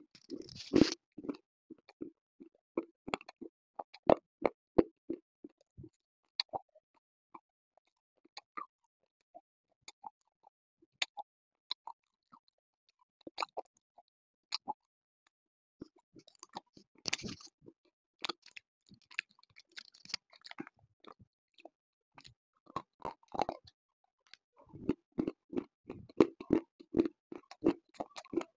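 Close-miked biting and crunching of hard, dry slate pieces: separate sharp crackles with short pauses between them, a few louder bites, and a fast run of chewing in the last few seconds.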